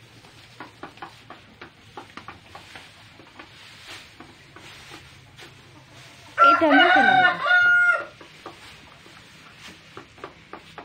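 A rooster crows once, about six seconds in: a loud, pitched call lasting about a second and a half. Faint rustling and small clicks in straw bedding are heard around it.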